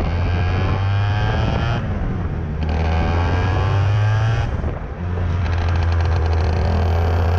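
IAME X30 125cc two-stroke kart engine running hard on track, its pitch climbing as the kart accelerates. About five seconds in it briefly eases off as the driver lifts the throttle for a corner, then picks up again.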